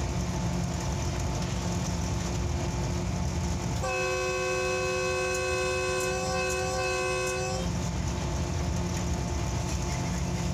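Steady low rumble of a locomotive running along the track, heard from the cab. About four seconds in, the locomotive's horn sounds one long chord of several pitches for about three and a half seconds, then cuts off.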